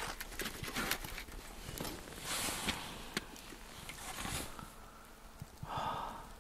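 Wood fire of split logs burning in an open fire stand, with irregular small crackles and pops. A few brief rustling noises come in between.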